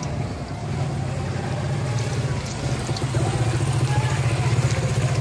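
A steady, low engine-like rumble with a fast pulse, growing louder in the second half, over a faint sizzle of pakoras frying in a wok of oil.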